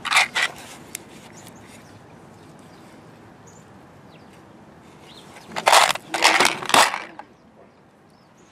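Small metal grease fittings rattling in a round assortment case: a short clatter at the start, then a longer, louder rattle about six seconds in as the fittings are shaken out into a hand.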